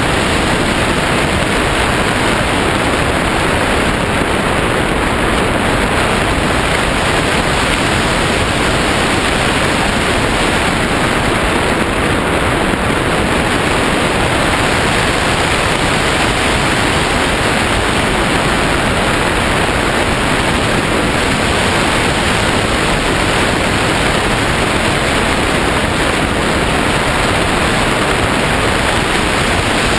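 Steady, loud rush of wind over the microphone of a camera mounted on a hang glider's wing in flight.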